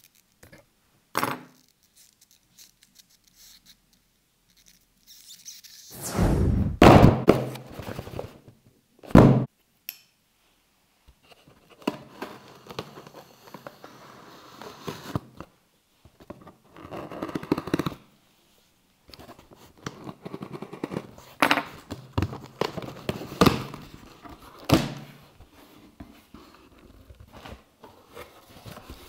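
A cardboard shipping box being opened by hand: a few loud thumps as the box is handled, then stretches of packing tape being peeled and torn off the cardboard with sharp scrapes and knocks. Near the end comes the crinkle of plastic air-cushion packaging.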